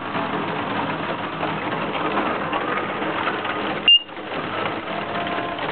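Lightning detector prototype giving one short, high-pitched beep about four seconds in, its alert for a detected strike, over a steady background hiss.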